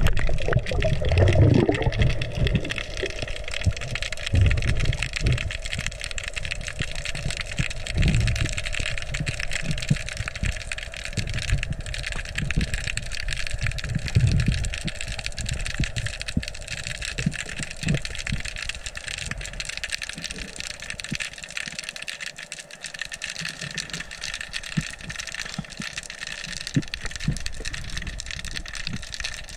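Underwater recording: a steady mechanical hum of many even tones carried through the water, with low water rushes and thumps against the camera in the first half that die away later on.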